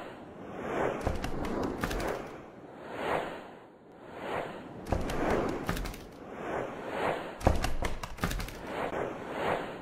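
Title-intro sound effects: whooshes that swell and fade about once a second, with three heavy booming hits, each with a crackle of sharp clicks, about one, five and seven and a half seconds in.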